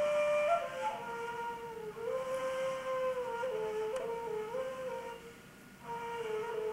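Ney, the end-blown reed flute, playing a slow solo melody of long held notes with small slides and turns over a breathy tone. The line breaks off briefly a little after five seconds in, then resumes.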